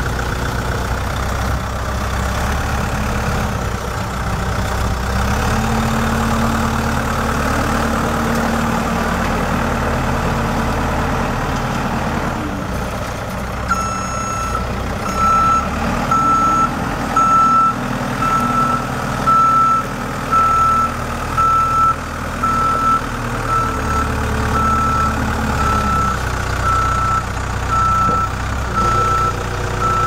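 Ford New Holland 675E backhoe loader's diesel engine running under load as it drives on gravel. About halfway through, its reversing alarm starts beeping steadily, a little more than once a second, as the machine backs up.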